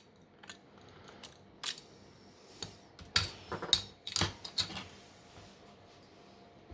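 Scattered small clicks and taps from a replacement motherboard being set into a smartphone's frame, with a quick cluster of them about three to five seconds in.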